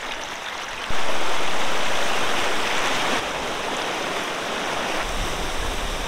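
Rushing whitewater of river rapids, a steady rush that jumps suddenly louder about a second in.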